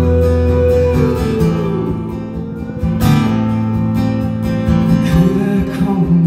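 Live solo acoustic guitar, strummed steadily, with a man singing over it; the voice comes through more plainly near the end.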